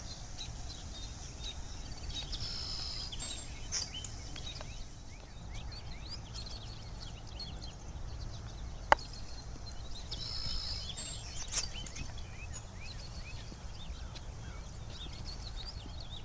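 Songbirds chirping and singing over a steady low rumble, with two brighter song phrases and a single sharp click about nine seconds in.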